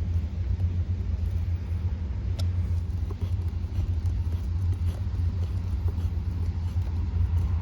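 Steady low rumble, with a single small click about two and a half seconds in.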